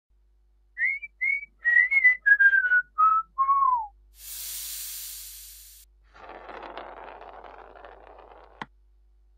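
A short whistled tune of about eight notes, stepping down in pitch from high to low. It is followed by a burst of high hiss, then a rougher, lower noise for about two seconds that ends in a sharp click.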